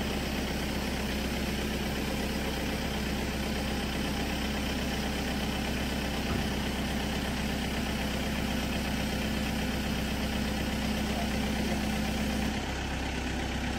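Kubota tractor's diesel engine running steadily while its front-end loader holds a raised load. Near the end the engine note changes and gets slightly quieter.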